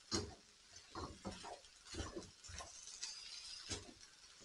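Plastic spoon stirring minced pork in a non-stick frying pan: quiet, irregular scrapes and light knocks against the pan, about two a second.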